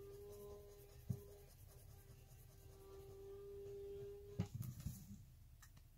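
Sharpie marker tip drawing swatches on paper, a faint steady squeak for about four seconds, then a few light knocks as the marker is handled.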